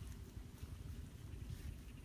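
Wind buffeting the microphone: a low, uneven rumble.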